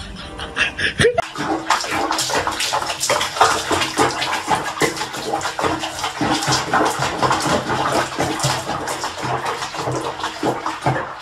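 Water sloshing and splashing in a small basin of soapy bathwater around a cat being bathed, with irregular splashes starting about a second in.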